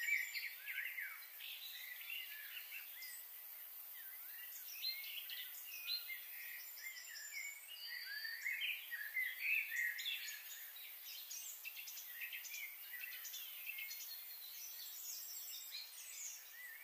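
Many small birds chirping and calling at once, short overlapping chirps and quick whistled notes.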